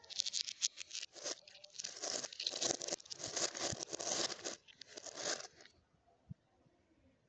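Thin plastic carrier bag crinkling and rustling in a series of short surges as a hand rummages inside it. It stops about a second and a half before the end, leaving only a few faint ticks.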